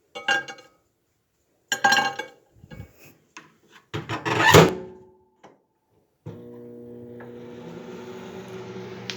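A few short clattering and rubbing knocks of handling and closing, the loudest about four seconds in, then a microwave oven starts up about six seconds in and runs with a steady hum and hiss as it heats the crackers.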